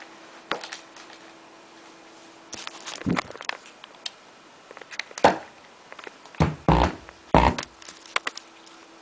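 Handling noise as the camera and a plug-in digital timer are moved by hand: scattered knocks, rustles and thumps, the loudest about five seconds in and two more between six and a half and seven and a half seconds, over a faint steady hum.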